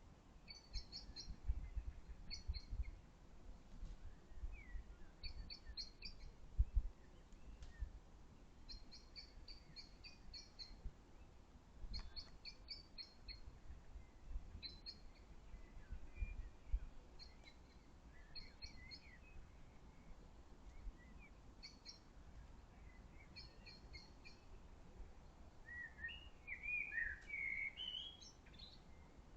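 Small birds chirping: short high phrases of a few quick notes repeat every second or two, with a louder, more varied run of calls near the end, over a faint low rumble.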